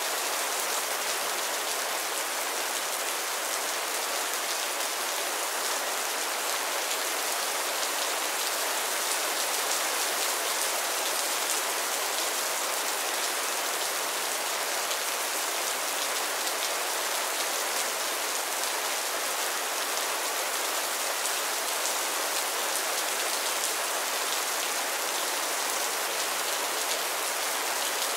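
Heavy rain falling steadily: a dense, even hiss of drops, bright and with little low rumble.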